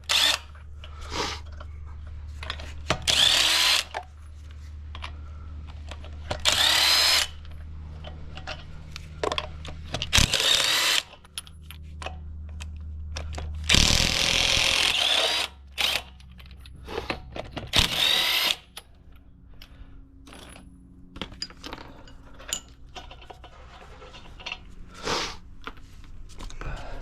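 Impact gun spinning 7/8-inch lug nuts off a truck's front wheel, one nut after another: about five short, loud whirring bursts a few seconds apart, with a weaker one near the end.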